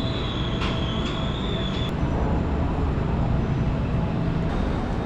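Steady low rumble of city traffic, with a thin high steady whine over it until about two seconds in.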